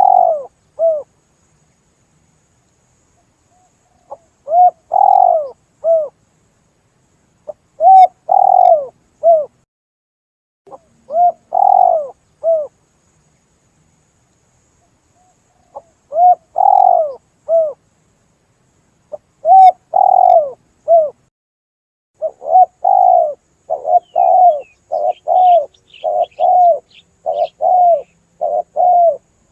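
Spotted dove lure call: phrases of three or four low coos every few seconds, then a faster, almost unbroken string of coos over the last several seconds. Faint high chirps of a smaller bird join in near the end.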